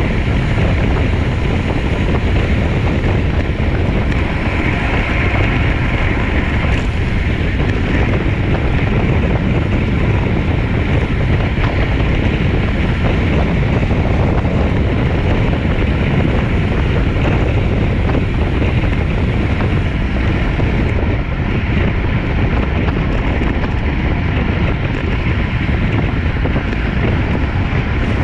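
Loud, steady wind noise on the microphone of a camera carried on a road bicycle during a race.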